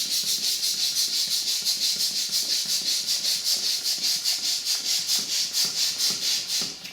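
Balloon helicopter toy deflating: air rushing out of the balloon through the nozzle and spinning plastic rotor gives a loud, rapidly and evenly pulsing hiss. It cuts off just before the end as the balloon empties.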